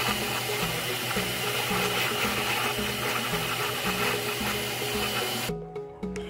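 Osterizer countertop blender running steadily, blending a liquid mix of strawberries, milk and yogurt, then stopping abruptly near the end.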